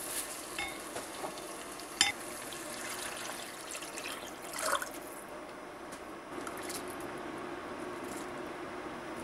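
A wooden spoon stirs and scrapes a thick seasoning paste in an earthenware pot, with a sharp knock about two seconds in. Water is poured into the pot a little before the halfway point, and then a steady low hiss carries on.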